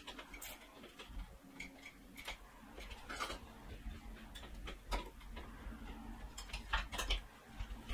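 Small plastic clicks and ticks, scattered and in a few quick clusters, as a nylon zip tie is pulled tight around clear vinyl tubing on a water-cooling fitting.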